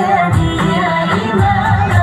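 A large choir singing a song together.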